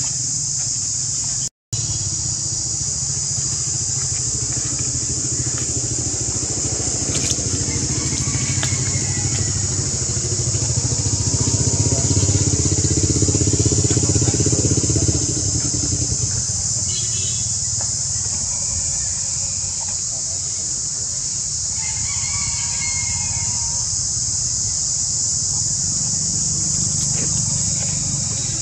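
Steady high-pitched insect drone, with a motor vehicle's engine rumbling underneath. The engine grows louder toward the middle and drops back suddenly about halfway through. A few short bird chirps come in the second half.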